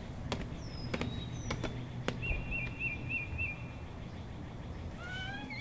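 Footsteps on a hard floor, with birds chirping in a repeated quick trill. Near the end comes a rising creak as a heavy wooden door swings open.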